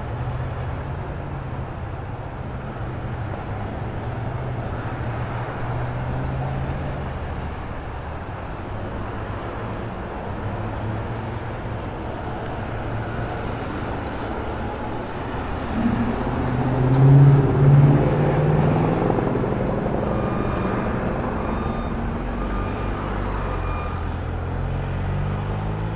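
Convoy of vehicles, black SUVs and an ambulance, driving past with engines running. The sound swells twice about two-thirds of the way through as the closest vehicles go by.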